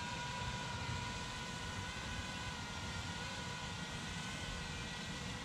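Feima Robotics J.ME quadcopter's propellers whining steadily in flight, several held tones that drift slightly in pitch, over a low rumble.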